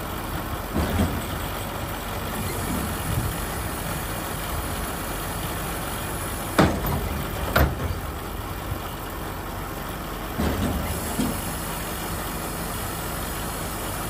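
An engine idling steadily, with two sharp knocks about halfway through.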